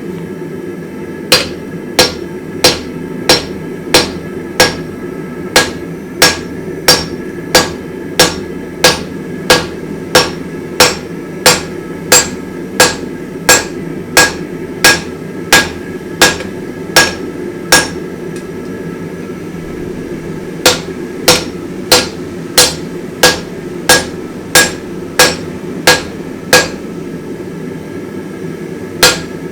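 Hammer blows on a hot damascus billet being drawn out on the anvil: a steady rhythm of about two ringing strikes a second, with two short pauses. A steady rushing noise runs underneath.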